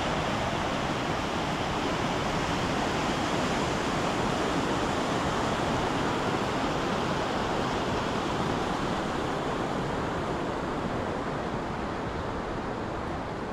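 Steady rushing water, a continuous even roar that eases off slightly near the end.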